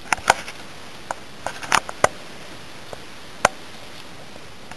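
Scattered sharp clicks and knocks: a loud pair near the start, a cluster about two seconds in, and a single loud one about three and a half seconds in, over a steady low hiss.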